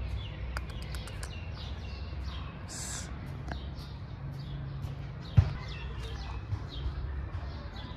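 Small birds chirping in the trees: many short, high, downward-sliding chirps repeated throughout, over a steady low background rumble. A single sharp click about five seconds in is the loudest moment.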